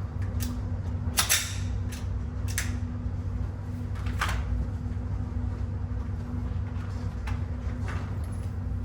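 Steady low room hum, broken by several sharp, irregular knocks, the loudest a little over a second in.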